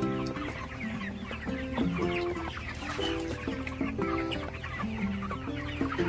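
A shed full of young broiler chickens peeping continuously in many overlapping short chirps, with background music playing a melody underneath.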